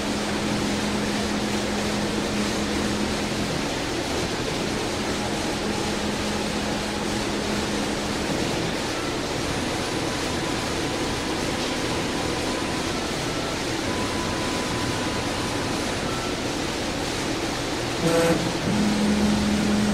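Laguna SmartShop 1 CNC router and its vacuum hold-down pumps running: a steady rushing hiss with a low hum. The hum drops out about eight seconds in and comes back near the end, just after a single knock.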